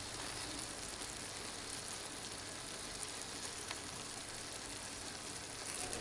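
Butter and hot water sizzling steadily in the pan of a Silex electric cooker around salmon fillets and potato wedges as they cook.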